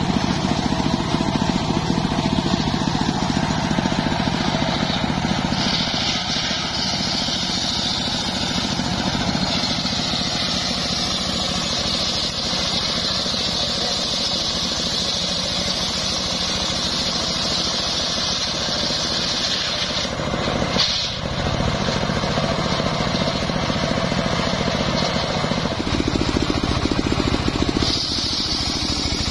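Homemade circular sawmill running steadily, its engine rumbling under the spinning blade. From about five seconds in the blade rips lengthwise through a sengon (albizia) log, adding a high, steady cutting whine. The whine dips briefly around twenty seconds in and is strong again near the end.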